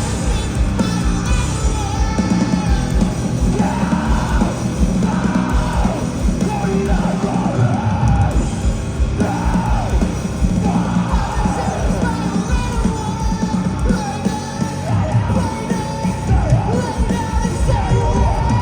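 Post-hardcore band playing a song live, the singer's voice yelled and sung over loud guitars and drums.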